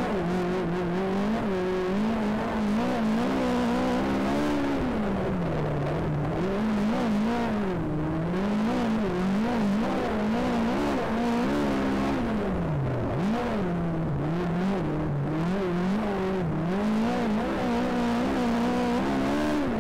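Speedway race car engine under racing throttle, its revs rising and falling over and over, every one to three seconds.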